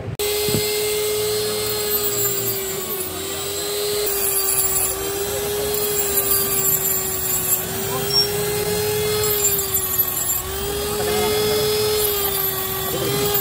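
Electric straight grinder running with a steady whine that sags and recovers slightly in pitch as it is loaded, grinding into a steel needle-roller bearing cage with a hissing scrape in several stretches.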